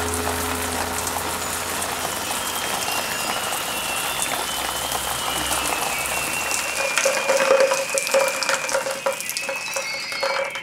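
Experimental film sound design: a dense crackling, rain-like hiss over a low hum that fades out about seven seconds in, then a pulsing mid-pitched tone with scattered higher tones near the end.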